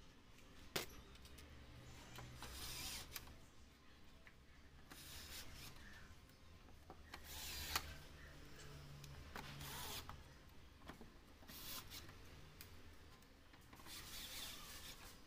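Faint handling noises of tools and screws on a TV's plastic back cover: a sharp click about a second in, then several short scraping, rustling bursts, over a low steady hum.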